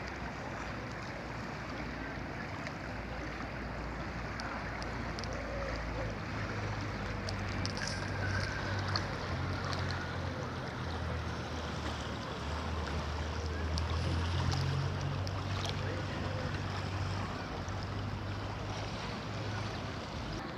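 Steady rush of the Kolubara river's flowing water, with wind rumbling on the microphone from time to time.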